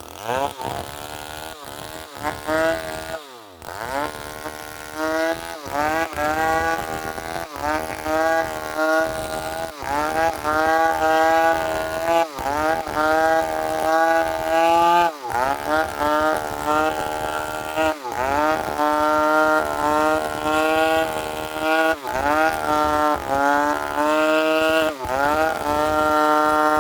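Two-stroke chainsaw engine running at high revs, its pitch dipping and swinging back up again every second or two.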